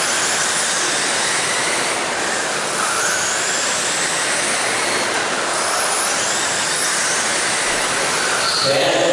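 Several electric RC sprint cars with 13.5-turn brushless motors racing on a dirt oval: a steady hiss of motors and tyres on clay, with faint high whines rising and falling as the cars pass.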